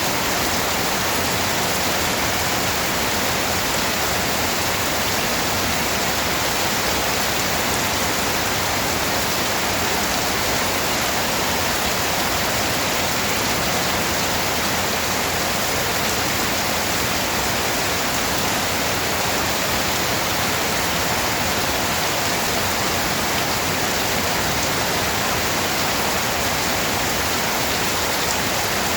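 Steady rain falling, an even, unbroken hiss of noise with no distinct drops or thunder.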